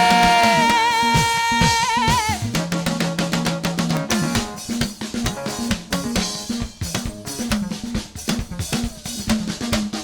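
A held sung note that ends in vibrato about two seconds in, then a live praise band's drum kit takes over with snare and kick drum hits over a moving bass line.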